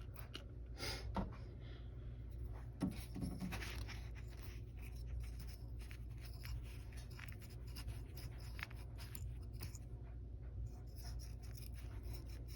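Scraping and rubbing with small irregular clicks and knocks as debris and wood crud are cleaned out of a Glowforge laser cutter, over a steady low hum.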